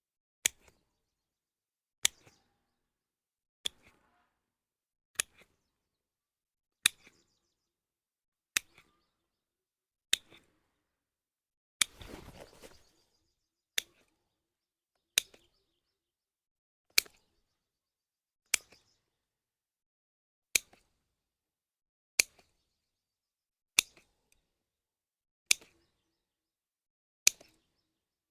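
A sharp knock repeating at an even, unhurried pace, about one every 1.7 seconds, around seventeen in all, with a brief rustling scrape about twelve seconds in.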